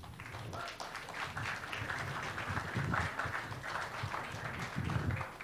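Audience clapping, fading away near the end.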